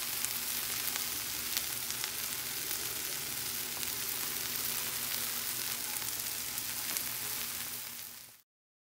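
Small shrimp and sliced onion sizzling in oil in a nonstick frying pan, a steady hiss with a few light spatula scrapes near the start. The sizzle fades out and cuts to silence just before the end.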